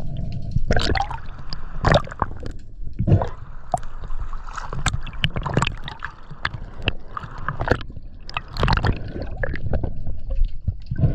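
Underwater water noise from a spearfisher's gear: gurgling and bubbling with a steady low rumble and many sharp clicks and knocks from the speargun and its line being handled.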